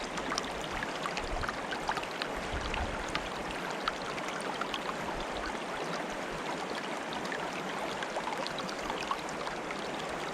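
Stream water bubbling and trickling steadily, with many small quick plinks and gurgles over an even rush.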